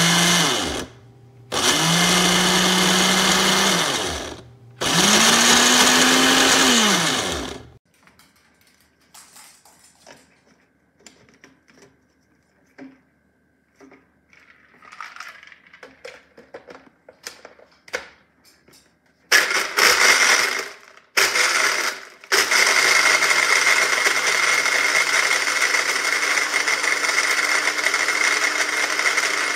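Syvio 600W personal blender motor pulsing three times in the first eight seconds, its pitch rising as it spins up and falling as it stops. Then comes a quiet stretch of light clicks as the cup and lid are handled. After that come two short pulses and then a long steady run.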